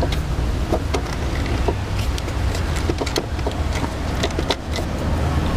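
Scattered light clicks and knocks of rubber tubing being worked onto the fittings of an oil catch can, over a steady low rumble.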